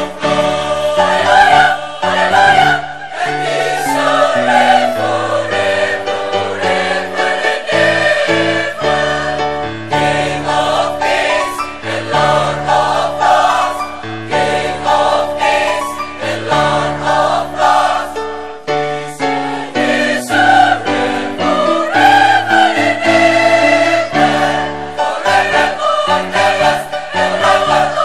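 Large mixed choir of male and female voices singing in parts, with long held low notes beneath the upper voices.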